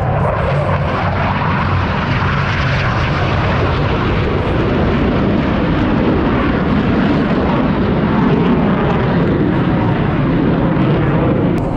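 Jet fighter's engine noise, a loud steady rush and rumble as the jet passes and pulls up into a climb, swelling slightly about eight seconds in.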